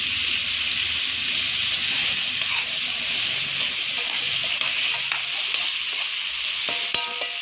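Sparrows and doves sizzling as they sauté in a hot pan: a steady hiss, with a few faint clicks.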